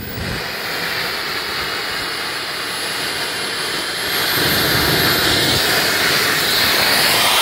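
Wren 100 model turbojet running on a large RC Blanik glider: a rushing jet noise with a thin high whine on top. It grows louder about four seconds in, with the turbine at launch power as the glider is hand-launched.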